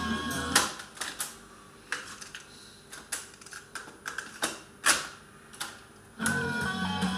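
Sharp GF-800 boombox's cassette-deck piano-key buttons clicking and clunking under a finger: the tape music from its speakers cuts off about half a second in, several sharp mechanical clicks follow, and the music starts again near the end.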